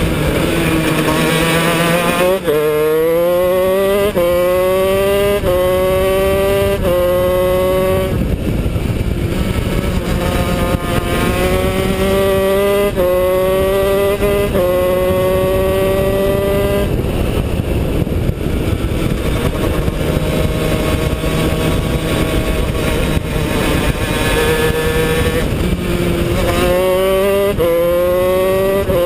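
Honda CR125 two-stroke single-cylinder shifter kart engine at racing speed, revving up through the gears: the pitch climbs, drops at each upshift, and climbs again. Three runs of upshifts, with the engine backed off and lower between them, over steady wind rush.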